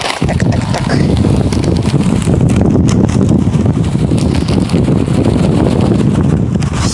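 Wind buffeting the microphone: a loud, unsteady low rumble throughout, with a few faint clicks and rustles.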